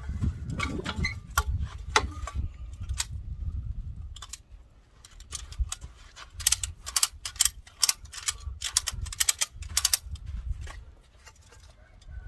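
Ratchet strap being cranked: runs of quick, sharp metallic clicks in bursts, drawing the ends of a skid steer track together. A low rumble fills the first few seconds.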